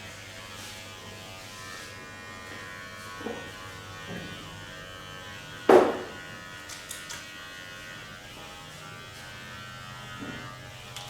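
A small electric motor buzzing steadily, with one loud sharp smack a little over halfway through and a few softer knocks.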